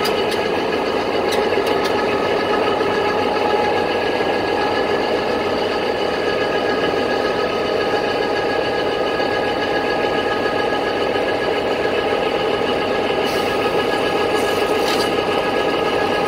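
Diesel locomotive engine idling at a standstill: a steady, even running hum with a held whine on top.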